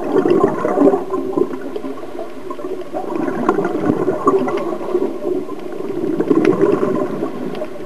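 Scuba diver's exhaled bubbles gurgling from the regulator, heard underwater through the camera housing, swelling in surges about every three seconds with each breath.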